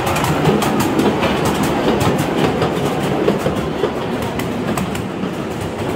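Miniature railway train running, heard from aboard an open passenger car: a steady rumble of the wheels on the track with a quick, irregular run of clicks as they pass over rail joints.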